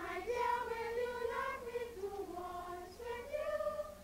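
Children's voices singing a sing-song taunt, heckling a man, in short melodic phrases.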